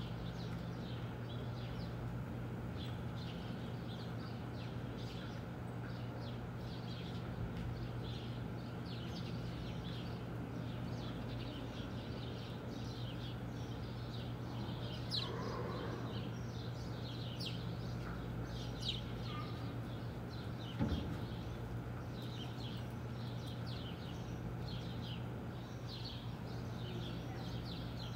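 Small birds chirping in many short, high calls over a steady electrical hum, with a single sharp knock about twenty-one seconds in.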